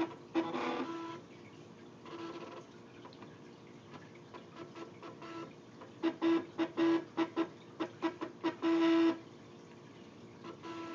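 Cricut cutting machine's stepper motors whining in short stop-start bursts as the pen carriage and paper rollers move under joystick control, with clicks between moves. The bursts come singly near the start and in a quick cluster from about six to nine seconds in.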